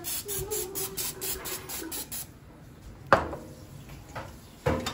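Aerosol cooking-oil spray can hissing in a rapid string of short bursts, about five a second, into an air fryer basket. Then two sharp knocks, the louder about three seconds in.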